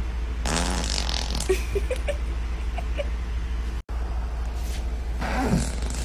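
Human flatulence: a woman farting twice, a pitched, wavering fart about half a second in and another about five seconds in, over a steady low hum.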